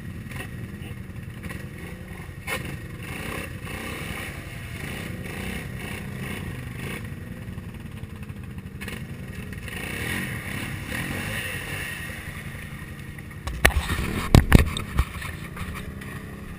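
ATV engines running steadily. A cluster of loud knocks close to the microphone comes near the end.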